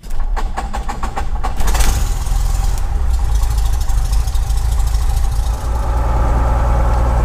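Cessna 172's piston engine cranking over on the starter, catching about two seconds in, then running steadily at idle around 1,180 rpm, heard from inside the cockpit.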